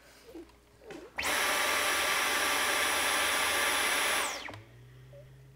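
Stick vacuum cleaner switched on about a second in, running steadily with a high whine for about three seconds, then switched off, its whine falling as the motor winds down.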